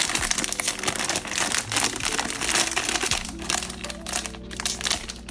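Blind-box packaging crinkling and crackling as it is handled and opened by hand, with quiet background music underneath.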